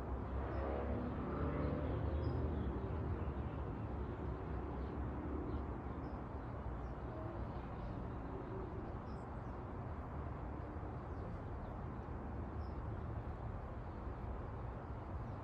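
Outdoor ambience: a steady low rumble that swells louder for the first few seconds, with faint scattered bird chirps.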